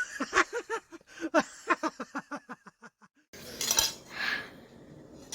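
Metal cutlery scraping on a plate in a rapid run of short squeaks that breaks off about three seconds in. A brief, rougher scrape follows.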